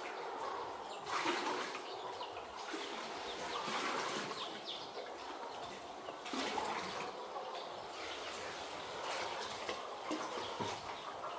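Water pouring and splashing in uneven surges.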